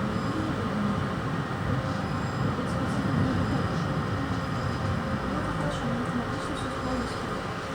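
Tram running along its rails, a steady rumble of wheels and motor heard from inside the car.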